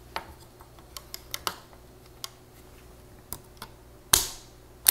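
Orange Torx torque wrench turning a TR4 socket's hold-down screw down, with scattered light ticks. It ends in two sharp clicks, about four seconds in and near the end, as the torque-limiting wrench reaches its set torque.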